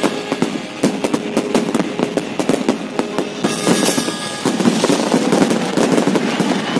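Fireworks display: a rapid barrage of bangs from bursting shells over continuous crackling, growing denser and more continuous about halfway through.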